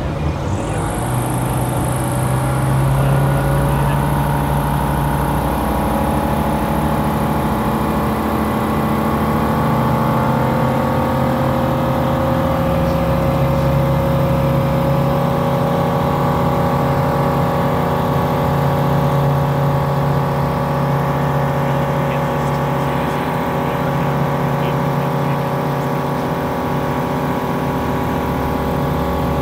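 Light aircraft's engine and propeller droning steadily in flight, with small shifts in pitch.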